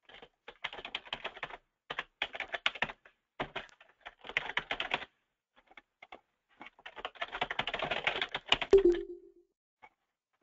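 Typing on a computer keyboard: quick runs of keystrokes in several bursts with short pauses between them, and a brief low tone about nine seconds in.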